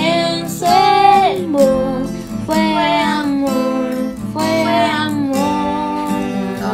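Teenage girls singing a Spanish-language pop ballad over acoustic guitar, holding long sung notes with vibrato.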